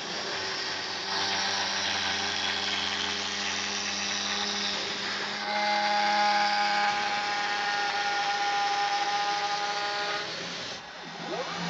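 Desktop CNC milling machine running, its spindle and axis motors whining steadily. The set of tones changes about a second in and again about five and a half seconds in, and the sound dips briefly near the end.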